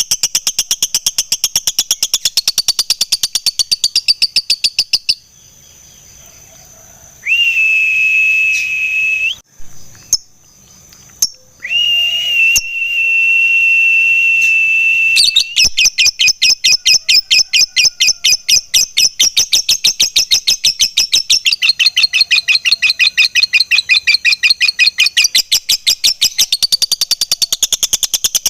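Lovebird giving long runs of fast, sharp chattering notes, about eight a second (the 'ngekek' song of a fighter lovebird), which break off for a few seconds in the middle where two long steady whistle tones sound, then resume to the end.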